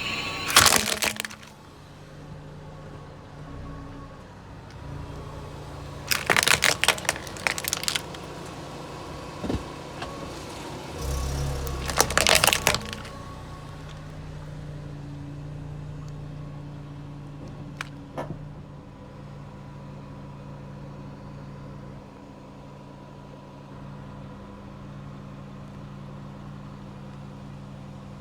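A car's engine runs slowly and steadily as its tyres crush brittle objects, giving three bursts of loud crackling crunches: a short one near the start, a longer one about six seconds in, and another about twelve seconds in.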